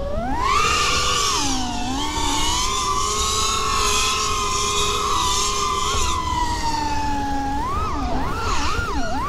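Whine of a 5-inch FPV quadcopter's brushless motors and propellers (iFlight Xing2 2207 1855kv), its pitch rising sharply at the start, holding fairly steady for several seconds, then dropping and swooping quickly up and down near the end as the throttle changes.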